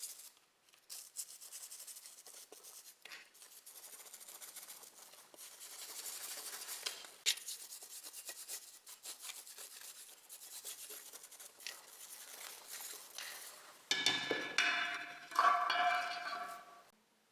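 Scraping and rubbing on rusty metal pliers, a long run of short, scratchy strokes. Near the end come two louder bursts with a pitched, squealing tone.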